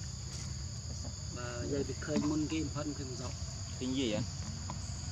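Steady, high-pitched drone of an insect chorus, holding two even tones throughout.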